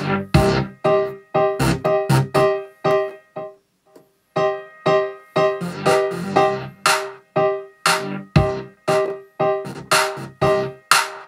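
A programmed beat playing back from Maschine: a piano pattern from the Maverick library over drums, a steady rhythm of struck notes. It drops out briefly about four seconds in, then comes back.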